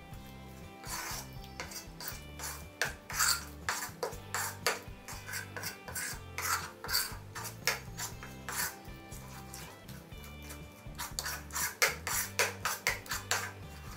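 Metal spoon scraping and stirring against a ceramic bowl while mixing a thick flour batter for potato bonda, in quick, uneven strokes that come thicker near the end.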